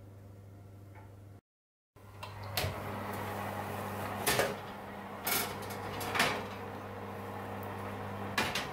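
Kitchen cupboard doors and things being handled: five sharp knocks and clacks, spaced a second or two apart, over a steady low hum. A brief dropout to silence comes about a second and a half in.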